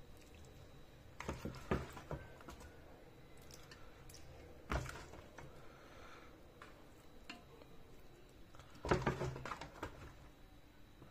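Metal spoon knocking and scraping against a steel cooking pot while rice is scooped out. A few clanks come just over a second in, one near five seconds, and a busier run of clatter about nine seconds in.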